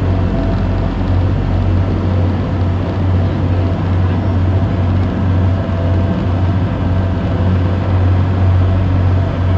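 A passenger boat's engine running steadily under way: a constant low drone over the rush of water churned up in its wake.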